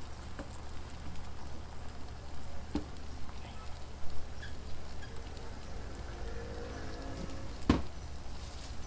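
Egg mixture and bacon sizzling on a flat-top griddle: a steady frying hiss over a low hum, with a few light clicks and one sharp knock near the end.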